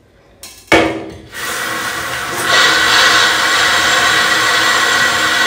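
A click under a second in, then a small electric motor starts up with a steady rush of air and a whine in it, stepping up louder about halfway through.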